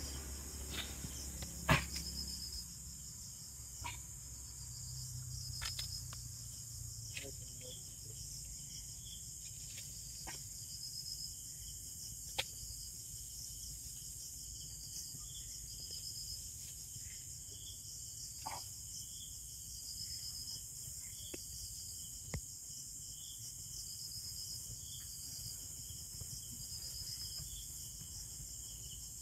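Night crickets chirping steadily in an evenly pulsing high trill, with a few scattered sharp clicks and knocks from close by.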